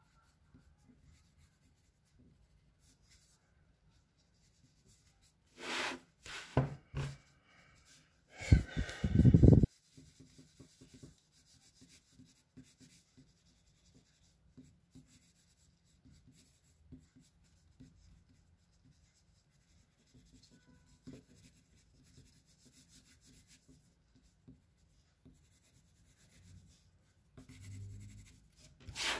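Graphite pencil scratching faintly across paper in quick sketching strokes. About six to ten seconds in, a few louder bursts of handling noise break in, the loudest just before ten seconds, and another near the end.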